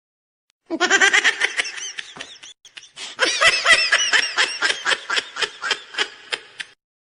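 Laughter: a fast run of ha-ha-ha pulses starting about a second in, dropping away briefly, then a second, higher-pitched run. It starts and stops abruptly out of dead silence, like a laugh sound effect added in editing.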